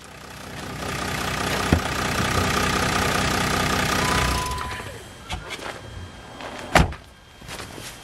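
A steady engine sound swells up, holds, and fades away about four and a half seconds in. Then come scattered light knocks, with one sharp knock about seven seconds in.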